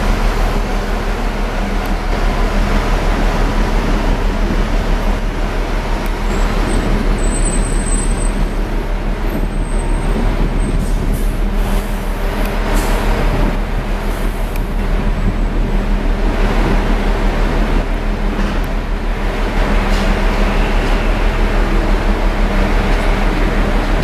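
A large engine or machine running steadily, a low even hum.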